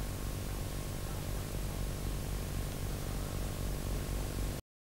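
Steady hiss with a low mains hum from the blank soundtrack of a 1988 video recording, cutting off suddenly to silence near the end.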